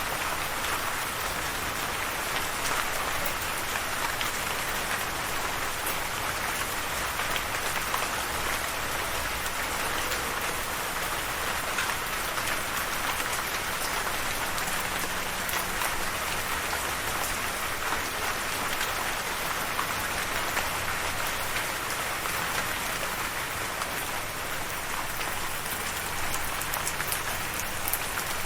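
Steady rain falling, a continuous even hiss of drops with scattered individual drop ticks.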